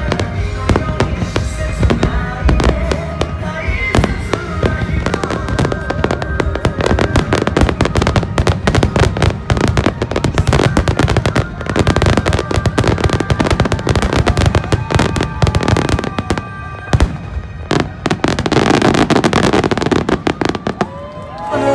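Fireworks bursting and crackling in rapid, dense succession, with music playing over them. The bangs thin out near the end.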